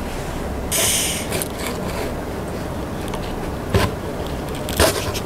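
Plastic spatula scraping frozen ice cream off a cold ice-cream-roll tray, trying to roll it up. There is a burst of scraping about a second in and two short knocks near the end, over a steady hiss.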